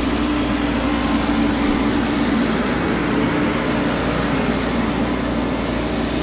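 A heavy diesel engine running steadily, an even drone with no change in speed.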